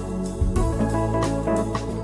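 Background instrumental music with sustained keyboard tones over a steady beat.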